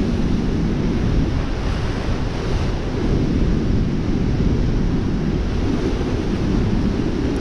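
Steady rush of turbulent floodwater churning below a dam's spillway gates, a loud even rumble of water.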